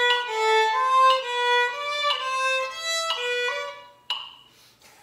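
Solo violin playing a bowed melody in steady notes; the last note fades away just before four seconds in. A sharp tick sounds about once a second, like a practice metronome, and goes on alone after the violin stops.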